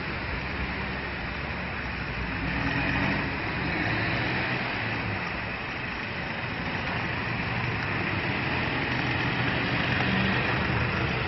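Road vehicle engines running steadily at low speed: a low hum whose pitch shifts slowly, over a constant hiss of road noise.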